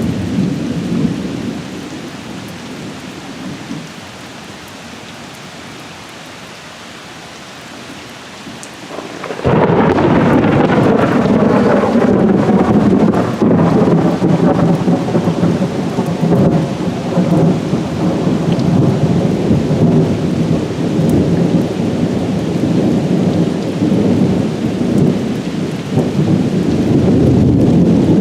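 Thunder from close lightning: a rumble dying away, then about nine seconds in a sudden loud clap that rolls on as a long, heavy rumble. Rain falls steadily throughout.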